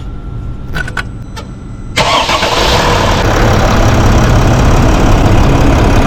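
Mercedes Sprinter's OM642 3.0-litre V6 diesel starting about two seconds in, then idling steadily. It runs without rattle, its radiator fan hub (carrier bearing) freshly replaced.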